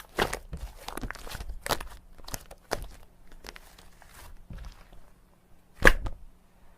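Slime being squeezed and pressed by hand, giving a run of crunchy crackling clicks and pops, with one loud pop about six seconds in.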